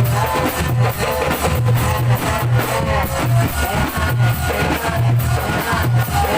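Music with a steady, heavy low beat about twice a second and a wavering melody above it.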